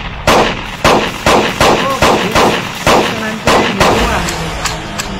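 Action-film sound effects: a rapid series of sharp, loud hits, about two a second, each with a short ringing tail, growing weaker near the end.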